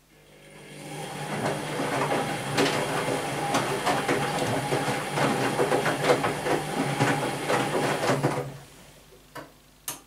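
Whirlpool Primo 1406 UM front-loading washing machine turning its drum during a rinse: the motor's steady whine with wet laundry and water sloshing and knocking in the drum. It builds up over the first second and stops about eight and a half seconds in, followed by two short clicks near the end.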